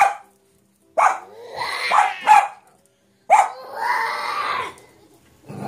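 A toddler's loud, barking growls made to scare a cat: several short cries with silent gaps, the longest starting about three seconds in.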